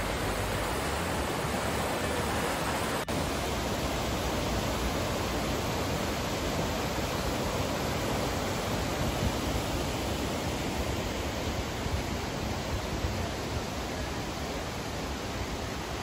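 A river rushing over a wide waterfall and rocky rapids: a steady, dense roar of water, with one very short break about three seconds in.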